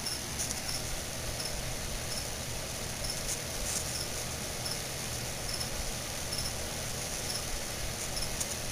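Hands pressing and scraping loose substrate in a clear plastic enclosure: a faint rustling with a few short crackles, clustered about three and a half seconds in, over a steady hiss and low hum.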